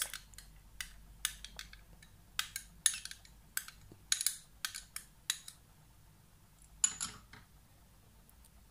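A metal spoon clinking and scraping against a small glass dish as thick sauce is scraped out: a run of light, irregular clicks, then one last click about seven seconds in.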